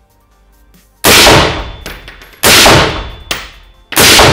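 Three suppressed shots from an AR-15 semi-automatic rifle, about a second and a half apart, each a sharp crack with a tail that echoes around an indoor shooting range.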